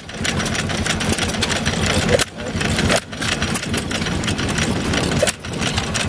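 Johnny-on-the-Spot hit-and-miss stationary engine running with a rapid, irregular mechanical clatter, dipping briefly a couple of times.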